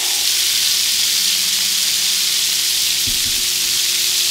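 Beef burger patties sizzling steadily in their rendered fat in a stainless steel frying pan, with a few soft low knocks about three seconds in.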